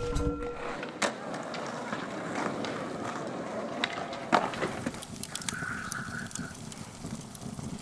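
A singing bowl's ring dies away in the first second, followed by a string of light clicks and knocks over a steady hiss.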